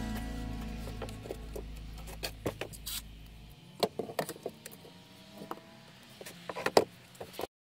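Scattered light knocks and clicks on wooden decking boards as a cordless drill is handled and set down, with the loudest knocks near the end. A low hum fades out by about halfway.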